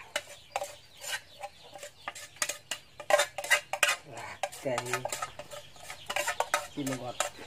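A metal spoon and pan scraping and clinking against a metal pot while minced meat is stirred, in quick irregular clicks. A chicken clucks twice, about five and seven seconds in.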